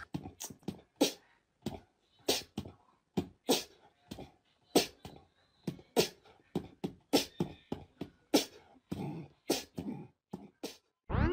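Small dog sniffing hard in quick short bursts, about three a second in an irregular rhythm, close to the microphone.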